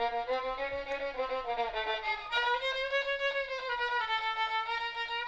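Violin playing a melody as background music.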